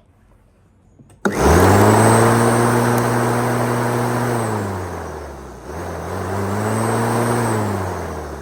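Stiga Combi 44e 1800-watt mains electric lawnmower switched on with a click about a second in, its motor and blade spinning up fast to a steady whir and then winding down. It is started again just past halfway, runs up once more and winds down near the end.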